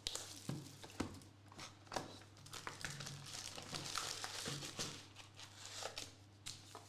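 Plastic wrapping on trading-card boxes and packs being torn open and crinkled by hand, with irregular crackles and small clicks that are busiest in the middle.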